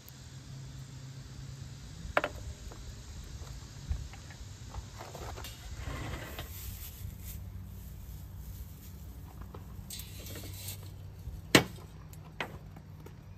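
Light clinks and scrapes of a small metal char tin being lifted and moved on a perforated steel fire pot with a stick, over a steady low hum. A single sharp knock near the end is the loudest sound.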